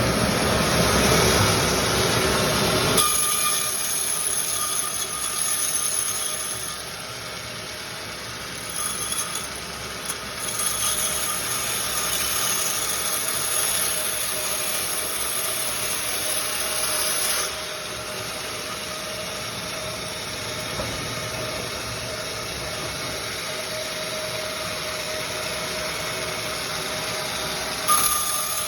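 Sawmill machinery running steadily, with a steady high whine over the mechanical noise. It is loud and full for about the first three seconds, then changes abruptly to a thinner, steadier run, with further sudden shifts past halfway and near the end.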